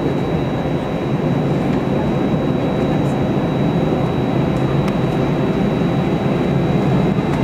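Airbus A320's jet engines running at low taxi power, heard from inside the passenger cabin: a steady rumble with a thin, constant high whine, getting a little louder about a second in.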